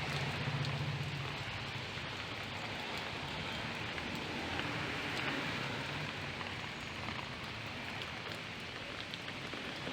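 Steady rain falling, an even hiss without break.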